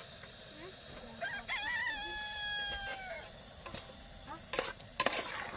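A rooster crowing once, about two seconds long, wavering at the start and ending in a long held note. Near the end come a few sharp clinks of a metal spoon against the cooking pot.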